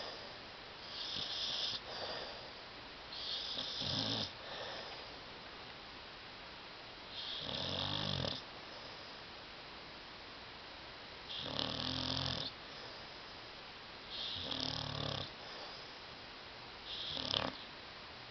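A sleeping dog snoring loudly, about six snores a few seconds apart, each lasting around a second.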